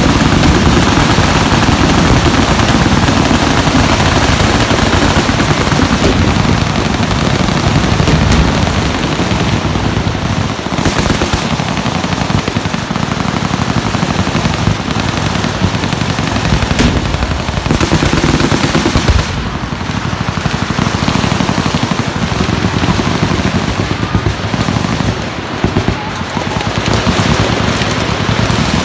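Many machine guns firing at once: a dense, continuous rattle of overlapping automatic fire with no real pause, easing slightly for a moment about two-thirds of the way through.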